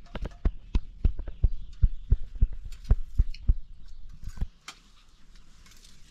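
Spoons and plates knocking and clattering during a meal: an irregular run of sharp knocks with low thumps, about three or four a second, which eases off about four and a half seconds in.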